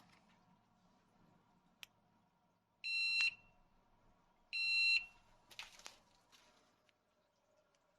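Battery deterrent alarm unit for a garage or shed giving two loud, high-pitched electronic beeps, each about half a second long and about a second and a half apart. A brief rustling noise follows about a second later.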